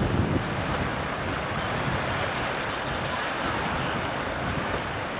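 Steady wind over choppy lake water, with wind buffeting the microphone, heaviest in the first half-second.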